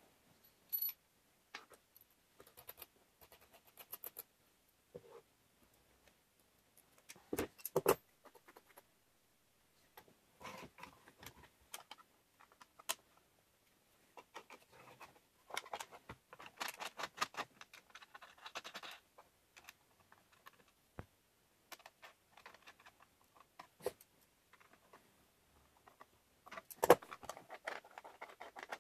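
Scattered clicks, taps and light metallic clinks of small wooden and metal workshop parts being handled and fitted by hand, with a few sharper knocks, the loudest near the end.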